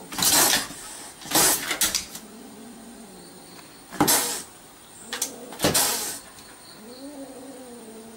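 A cat hissing at a dog in four short, sharp bursts, with a low wavering growl between them.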